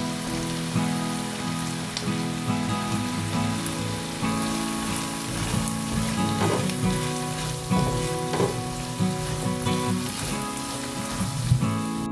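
Sliced onions and minced garlic sizzling in hot oil in a nonstick frying pan, stirred and scraped with a spatula. Soft guitar music runs quietly underneath.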